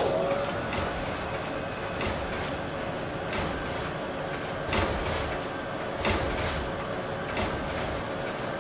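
Mechanical rolling sound effect: a sharp clank at the start, then a steady hum with light clicks about every second and a third, as of heavy modules running on an overhead rail.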